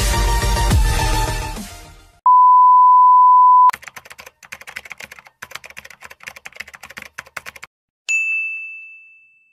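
Electronic dance music fades out over the first two seconds. Then a loud steady beep lasts about a second and a half. A rapid typewriter-style typing sound effect follows for about four seconds, and it ends in a single bell ding that rings out.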